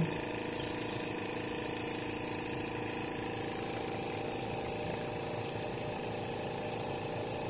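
Ultimate EZ Milker's vacuum system running steadily with a constant hum and hiss, drawing colostrum from the cow's teat into the collection bottle.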